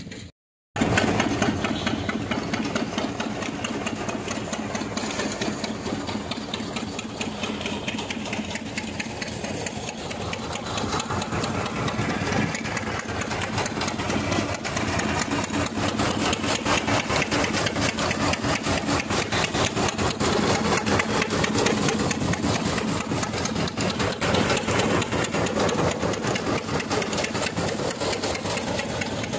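Single-cylinder stationary engine running steadily with a fast, even beat, belt-driving a peanut cleaning machine that rattles as it works.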